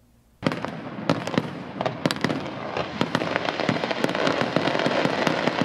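Fireworks going off: a dense, continuous run of crackling pops and sharp bangs that starts suddenly about half a second in.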